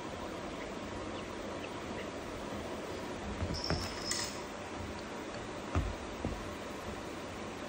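Baby crawling and shifting on a soft bed, with a couple of soft thumps in the second half, over a steady background hiss. A brief high squeak sounds a little past halfway.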